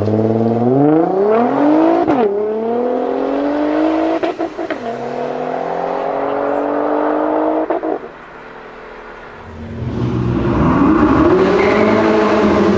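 2017 Nissan GT-R R35's twin-turbo V6, fitted with AMS downpipes and an aftermarket Y-pipe, accelerating hard away: the revs climb steeply, drop sharply at an upshift about two seconds in, then climb again through the next gear, with a few sharp cracks around four seconds and near eight seconds before the sound falls away. From about ten seconds a Ferrari 488's engine rises and falls in pitch.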